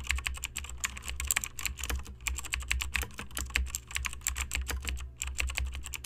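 Computer keyboard typing sound effect: a fast, steady run of key clicks over a low hum, with a short break about five seconds in.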